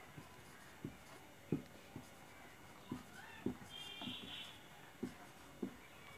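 Marker pen writing on paper: faint, irregular taps and light scratches as the letters are stroked out, with a brief soft scratch about four seconds in.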